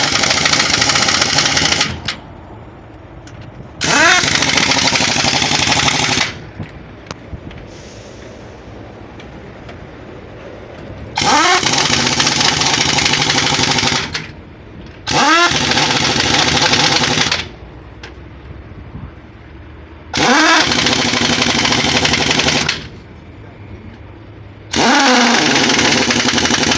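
Pneumatic impact wrench running in six bursts of two to three seconds, each winding up in pitch as it starts and then rattling steadily, tightening the wheel nuts as the repaired truck wheel is fitted back on.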